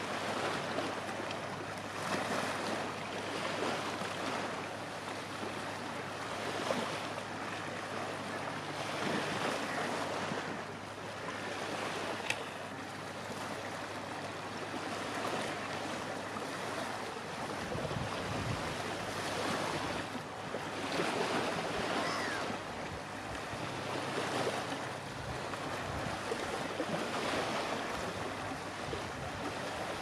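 Small waves breaking and washing up a sandy shore, the surf rising and falling in irregular surges.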